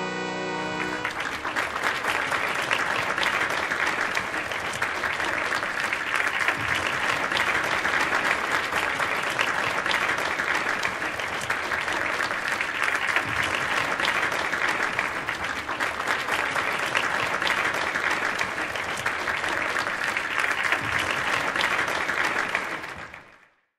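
Audience applauding: a long, steady round of clapping that fades out near the end.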